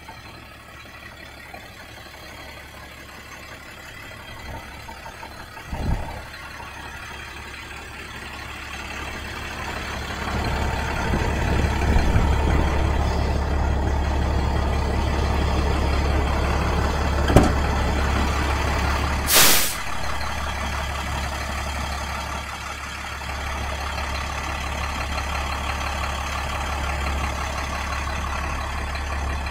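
International DT466 diesel engine idling steadily, growing louder about a third of the way in. There are a couple of sharp knocks, and about two-thirds through comes one short, loud burst of air hiss from the truck's air brake system.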